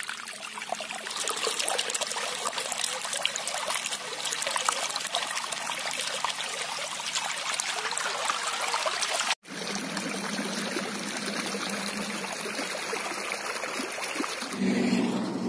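Irrigation water gushing out of a concrete pipe outlet into a muddy field channel, a steady rushing splash, during the first watering of a young wheat crop. The sound drops out for an instant about nine seconds in, and a low steady hum joins near the end.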